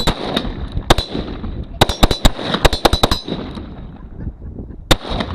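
Gunfire: about a dozen sharp shots, irregularly spaced, with a quick string of them in the middle and a last single shot near the end.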